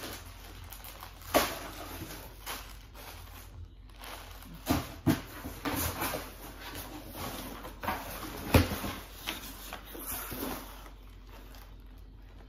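Cardboard shipping box being handled and moved: scraping and rustling of cardboard with several knocks, the loudest about a second and a half in and again about eight and a half seconds in.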